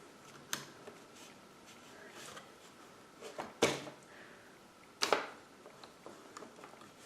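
Hard plastic toy pieces knocking and clicking as they are handled and fitted together: three sharp clicks, the loudest about three and a half seconds in, with a few fainter ticks between.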